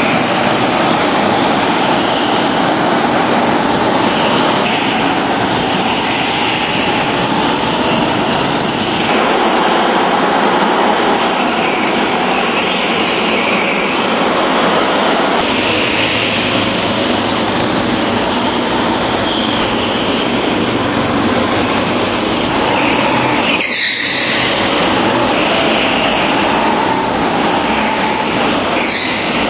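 Several go-kart engines running and revving as the karts lap an indoor track, with a brief break about 24 seconds in.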